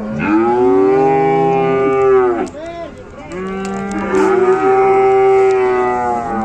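Cattle mooing: two long, loud moos one after the other, the first about two seconds long, the second about three.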